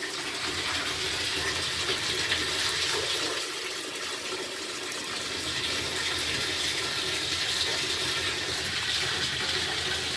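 Hot water tap running steadily into a bathroom basin or tub, a continuous hiss and splash, run to empty the hot water out of the water heater tank.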